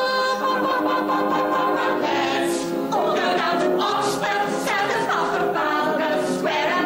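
Several voices singing a song together in harmony, with long held chords and sharp 's' sounds on the words.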